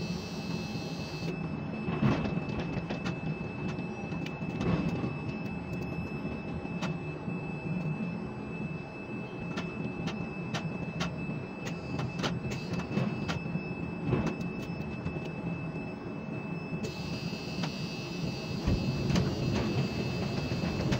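Ship-to-shore quay crane heard from the operator's cab while the spreader is hoisted and trolleyed: a steady low machinery hum from the crane drives with a faint steady whine, and scattered clicks and knocks throughout, the loudest about two and five seconds in.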